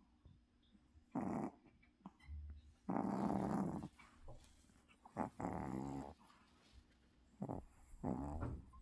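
Maltese dog making low, throaty sounds in separate bouts roughly every two seconds, the longest lasting about a second.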